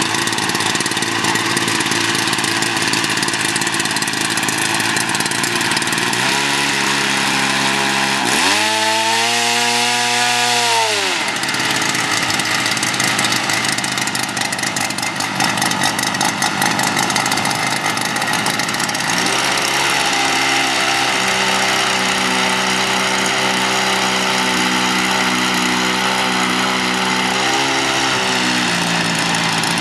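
Small engine of a radio-controlled flex-wing drone running with its rear pusher propeller, a steady loud buzz. It is throttled up and back down about eight to eleven seconds in, then held at a higher speed from about nineteen seconds until it drops back near the end.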